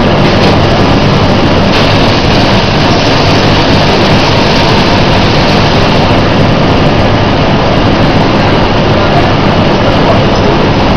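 Loud, steady drone of running feed-mill machinery, with a low hum under an even mechanical noise.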